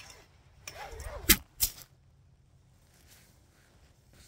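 A camera on its tripod tipping over and hitting the ground: two sharp knocks about a second and a half in, a third of a second apart.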